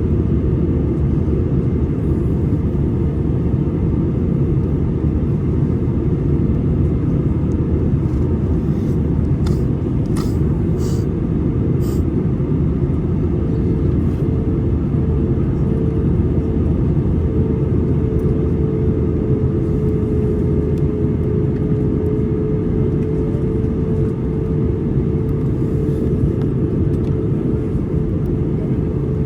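Steady cabin noise of an Airbus A320 in flight: a continuous low roar of engines and airflow with a steady hum just under 500 Hz. A few brief clicks come about a third of the way in.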